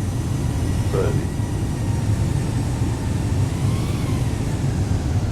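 Steady low rumble of a jet airliner on short final approach, just before touchdown. A single short voice-like syllable is heard about a second in.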